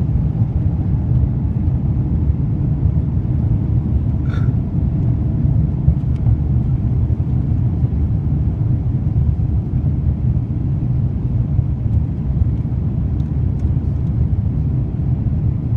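Steady low rumble of an Airbus A350-900's Rolls-Royce Trent XWB engines and rushing air, heard inside the cabin during the climb after takeoff. A brief faint high chirp about four seconds in.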